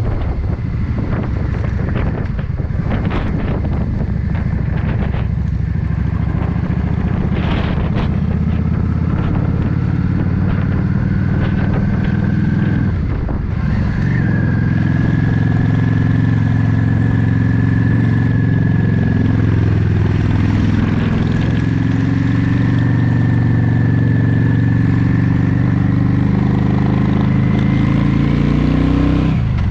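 Yamaha XVS 650 Drag Star Classic's air-cooled V-twin running under way, with wind buffeting the microphone over the first several seconds. About thirteen seconds in the engine note dips briefly, then carries on steadily with its pitch gently rising and falling.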